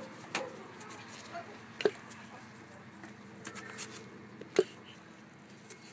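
Spark plug wire boots being pulled off a 2002 Dodge Neon's spark plugs, each coming free with a sharp click: three clicks in the space of a few seconds, over a faint steady hum.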